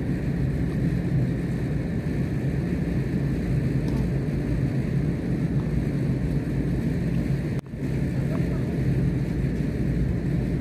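Steady low rumbling noise, with a faint hit of a racket on a tennis ball about four seconds in; the sound cuts out for an instant about three-quarters of the way through.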